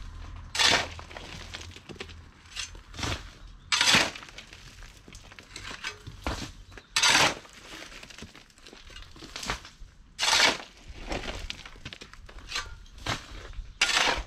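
Broken concrete rubble and soil being scraped and dragged with a long-handled tool, a dozen or so short grating strokes every second or two.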